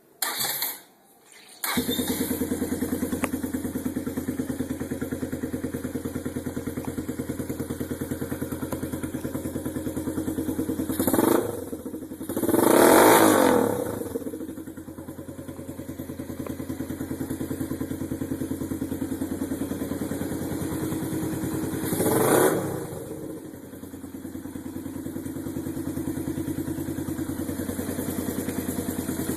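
Suzuki Yes 125 motorcycle's single-cylinder four-stroke engine through an aftermarket Roncar SS exhaust: a brief burst, then the engine starts about two seconds in and idles steadily. It is revved briefly about eleven seconds in, harder and longer from about twelve to fourteen seconds, briefly again around twenty-two seconds, then settles back to idle.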